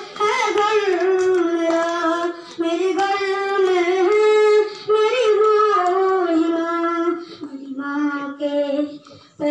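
A young boy singing solo into a handheld microphone in a high, rustic voice, with no accompaniment. He holds long notes in phrases broken by short breaths and sings lower and softer near the end.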